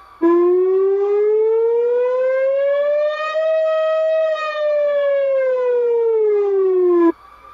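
Emergency alert siren tone sounding an earthquake (seismic) warning: one long wail that rises slowly for about three seconds, holds briefly at its top, then falls back over about three seconds and cuts off suddenly.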